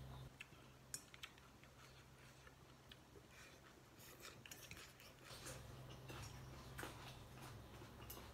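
Quiet eating at the table: a few faint clicks of chopsticks and a spoon against a glass bowl, with soft sounds of noodles being eaten.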